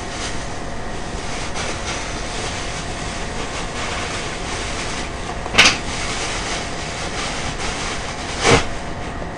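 Steady rushing background noise, broken by two brief sharp handling noises, one about five and a half seconds in and one near the end as a plastic bag is handled.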